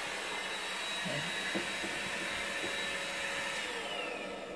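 A steady electric motor whir that winds down near the end, its whine falling in pitch as it fades.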